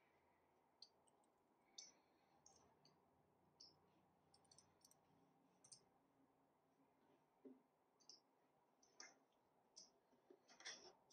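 Near silence with faint, irregular clicks of a computer mouse, roughly one or two a second, some in quick clusters.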